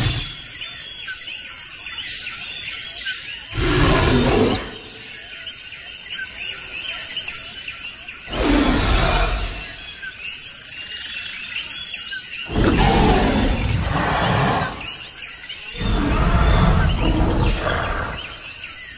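Four dinosaur roar sound effects, each lasting one to two seconds, over a steady jungle ambience of chirping birds and insects.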